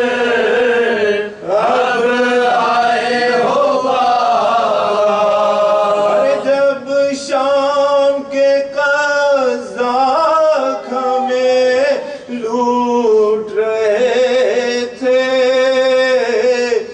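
A man's voice chanting a marsiya, an Urdu elegy of mourning, in long drawn-out melodic lines that are held and then bend.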